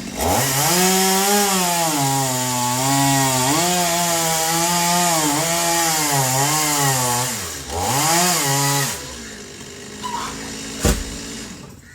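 Chainsaw engine revving up and running under load, its pitch dipping and recovering as it cuts through wood. It falls away about seven and a half seconds in, revs once more briefly, then stops; a single sharp knock follows near the end.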